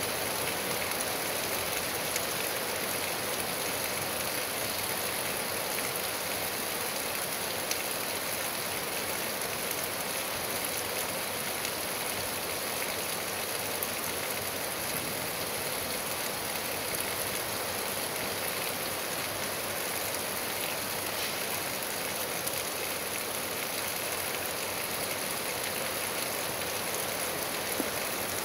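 Steady rain falling: an even hiss with now and then a louder single drop.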